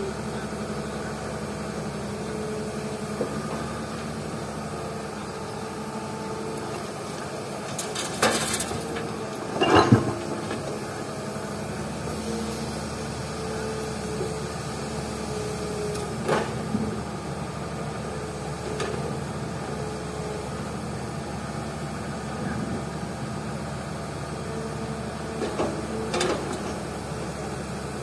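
Heavy diesel machinery running steadily while an excavator loads rocky fill into a dump truck, with a few sharp clunks and thuds, the loudest about ten seconds in.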